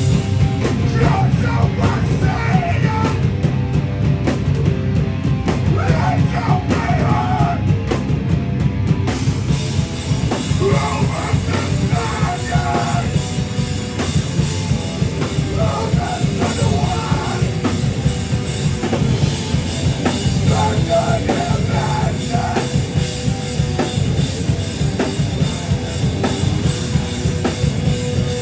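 A heavy rock band playing loud and live, with a pounding drum kit and vocals that come and go over dense, distorted-sounding music.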